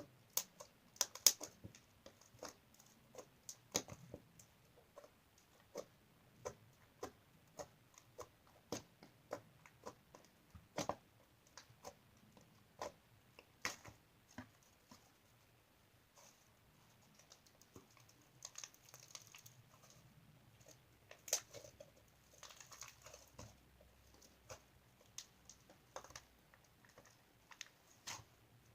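Slime being pressed and poked by hand, giving irregular small clicks and pops, with a couple of short crackly stretches.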